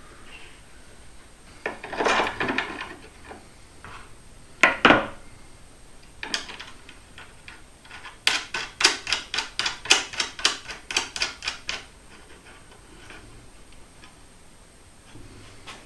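Loose steel bolts, washers and nuts handled on a wooden board: a scraping rustle, a sharp metal clatter, then a run of quick clicks, about four a second for several seconds, as hardware is fitted to the hinge brackets by hand.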